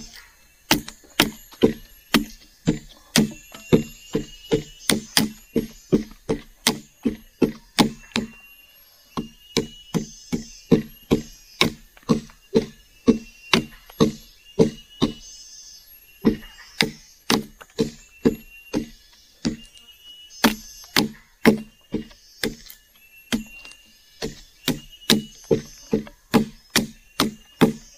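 Machete chopping again and again into a hand-held length of freshly cut wood, shaving it down to rough out a wooden spatula. Short sharp strikes, about two or three a second, with brief pauses.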